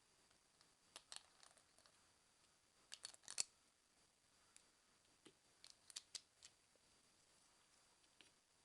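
Small sharp clicks and snaps of hard plastic Beyblade parts being handled and fitted together, as the L-Drago Guardian top is switched into its second mode. The clicks come in a few short groups, the loudest about three seconds in, over near silence.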